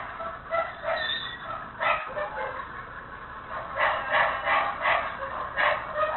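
A dog barking repeatedly, with a lull in the middle and then a quick run of barks, heard thin and tinny through a security camera's microphone.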